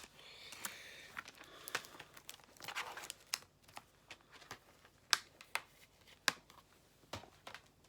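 Plastic DVD cases being handled: a string of sharp clicks and taps, with short stretches of crinkling rustle about a second in and again near three seconds in.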